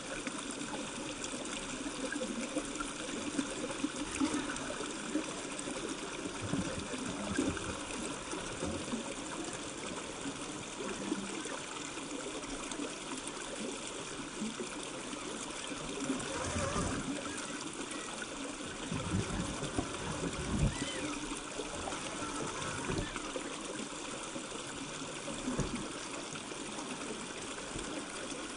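Shallow river water trickling and running over rocks, with a few low thumps around the middle.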